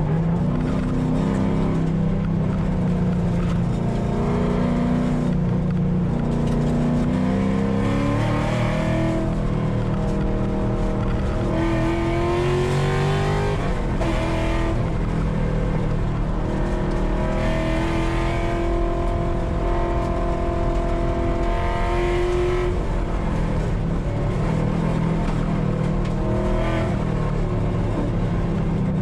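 A car engine driven hard, its revs repeatedly climbing and then dropping back as it accelerates, shifts and slows, at a steady loud level.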